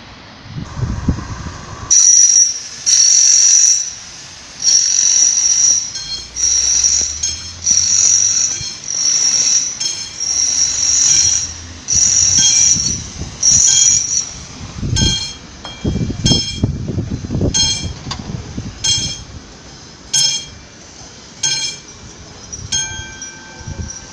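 Level-crossing warning bell (the classic mechanical bell on an AŽD 71 crossing signal) ringing in repeated strokes, about one a second, starting about two seconds in. The early strokes ring on longer; later ones are shorter and more clipped, with a low rumble of traffic in the middle.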